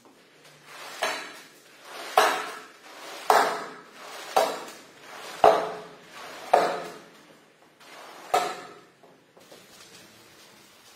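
A squeegee drawn across a soaked shag carpet, pushing the water out in seven strokes about a second apart, each a sharp scrape trailing off into a wet swish. The strokes stop well before the end.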